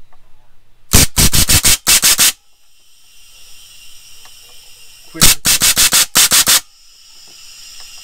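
Rapid-fire pneumatic air cannon: a half-inch 12 V solenoid valve dumping a reservoir tank of compressed air in sharp blasts. There are two rapid trains of about seven blasts each, roughly five a second, the first about a second in and the second about five seconds in. A steady high hiss fills the gaps between the trains.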